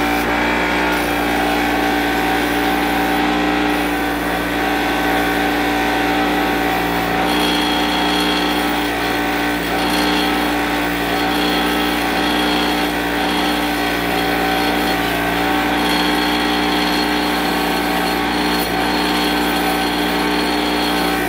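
A 6-inch bench grinder runs steadily with a constant whine while a rusty threaded leg from a wheel balancer is held against its wire wheel, making an ongoing scraping hiss as the rust is scrubbed off.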